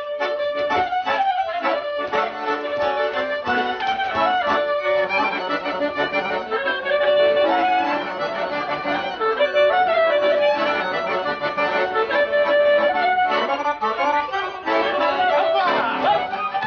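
Accordion playing a lively folk dance tune, with a melody of held and running notes.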